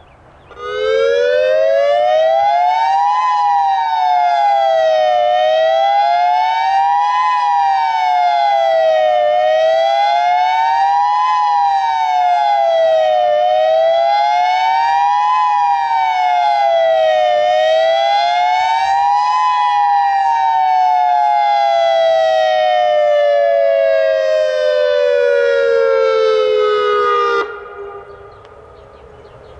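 Federal Signal Modulator II 5020B electronic outdoor warning siren sounding its fast-wail test signal. Two close pitches rise and fall together about every four seconds, reaching five peaks, then slide down in one long falling glide that cuts off suddenly near the end.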